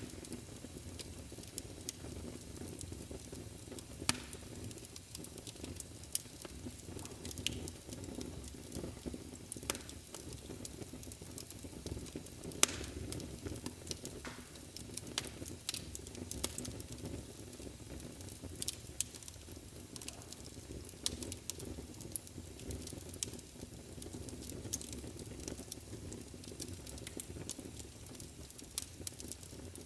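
Wood fire burning in a fireplace: a steady low rumble of flames with frequent irregular crackles and pops, a few of them sharp and loud.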